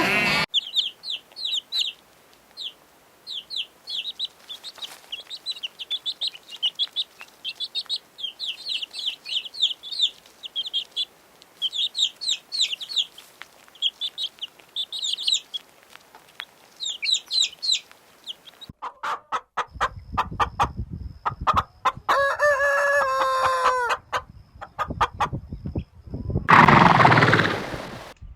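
Chickens: a long run of rapid, high, short peeps. About 19 s in it changes abruptly to clucking and knocking, with a held pitched call and a loud crow-like call near the end.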